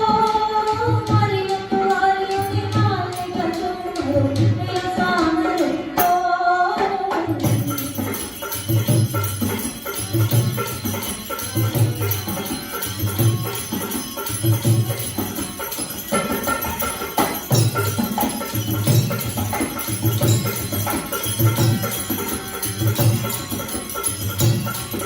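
Rajasthani folk music: a singer over a steady drum beat with jingling bells. The singing stops about seven seconds in, and the drum, about two beats a second, and the jingles carry on.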